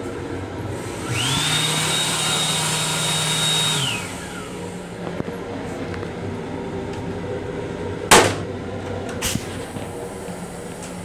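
Built-in hand dryer in a combined dryer-faucet-soap unit blowing for about three seconds: its whine jumps up, holds steady, then winds down. Later comes a sharp thump, the loudest sound, with a lighter click about a second after it.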